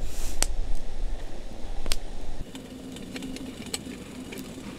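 Wind buffeting the microphone, a low rumble with two sharp clicks, cuts off abruptly about two and a half seconds in. After it the sound is quieter: a faint hum and a string of light ticks as a hand lifts the wire handle of a stainless steel kettle on a camp gas stove.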